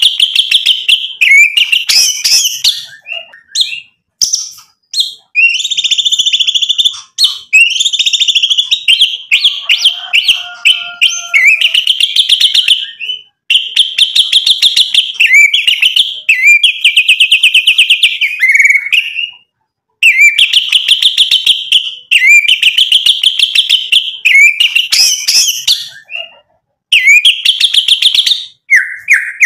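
White-rumped shama (murai batu) in full song: loud phrases of fast, rattling repeated notes, each a second or two long, with short pauses between them.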